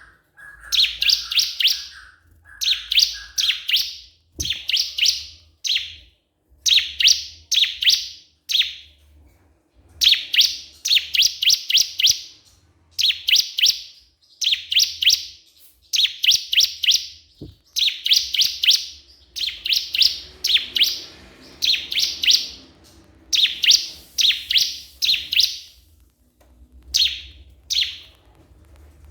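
Ciblek kristal, a prinia, singing a loud, rapid, high-pitched chattering song in short phrases of quick repeated notes, one phrase about every two seconds: the gacor challenge call used to provoke other ciblek into singing.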